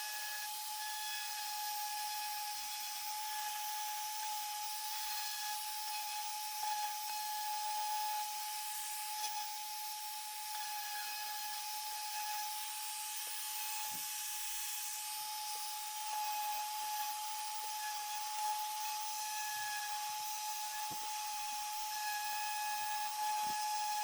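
Electric orbital sander running steadily on the edges of a thick wooden cutout: one steady whine over a hiss, with a few faint knocks now and then.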